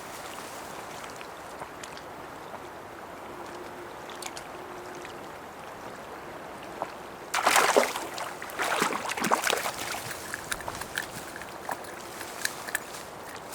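Water splashing and sloshing for about three seconds, starting roughly seven seconds in, then a few small clicks, over a steady hiss of wind and small waves on a lake.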